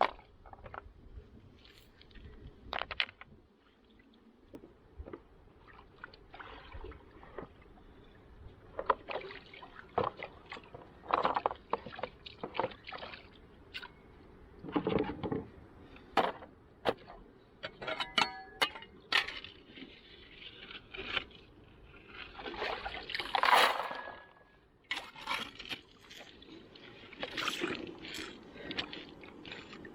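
Gold prospecting in river gravel: irregular scrapes, knocks and clatters of stones, with water splashing. One louder scraping burst comes about three quarters of the way through.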